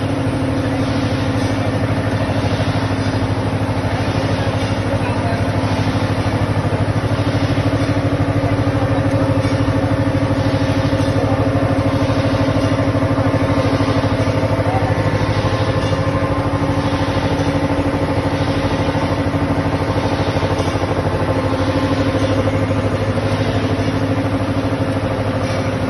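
Double-decker de-airing pugmill running with clay in its hopper, its electric motor and reduction gearbox giving a steady, even hum.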